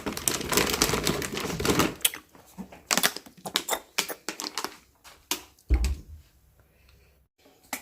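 Water running from a tap, which stops about two seconds in. It is followed by irregular light clicks and knocks of dishes and utensils being handled.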